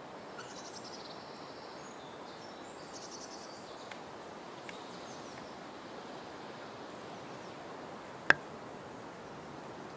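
Steady rolling noise of a mobility scooter travelling along a gravel path, with a few faint high bird chirps in the first few seconds. A single sharp knock a little after eight seconds in is the loudest sound.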